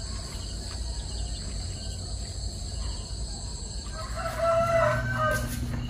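Insects calling steadily in high, even tones. A rooster crows once near the end, about a second and a half long.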